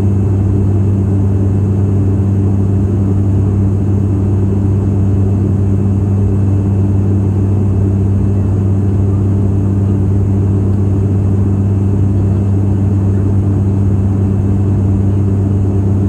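Turboprop airliner's engine and propeller heard from inside the cabin in flight: a steady, loud low hum at a fixed pitch with its overtones, over a constant rushing rumble.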